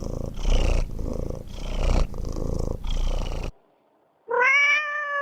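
Domestic cat purring loudly and close, swelling and easing with each breath, then one short meow near the end that cuts off abruptly.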